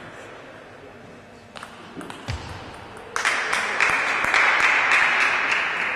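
A few sharp clicks of a table tennis ball and bat. Then, about three seconds in, applause breaks out loudly and fades toward the end, greeting a won point.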